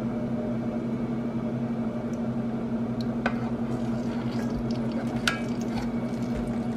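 A kitchen appliance motor, such as a fan, hums steadily with a low drone. A few light clicks come about three and five seconds in, from the plastic measuring cup touching the cast iron skillet.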